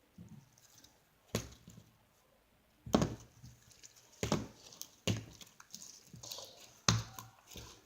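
Hands playing with slime: several sharp pops and slaps, irregularly spaced, with quiet in between.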